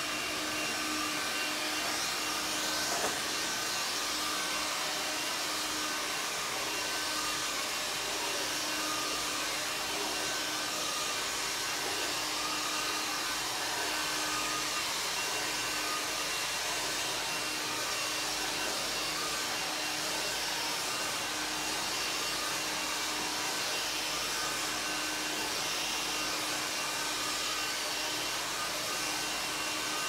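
Stick vacuum cleaner running steadily on a rug: a constant motor tone over a rushing hiss.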